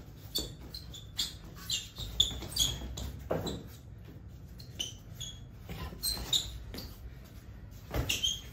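Rubber-soled sneakers squeaking in short chirps on a smooth tiled floor as two boxers move and shuffle while sparring, with a few sharp thuds of gloved punches and footfalls, the loudest about two seconds in.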